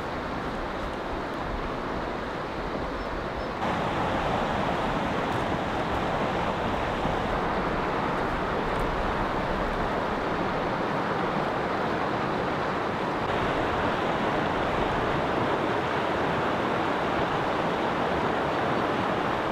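Shallow river rapids rushing steadily, a continuous sound of flowing water that gets louder about four seconds in.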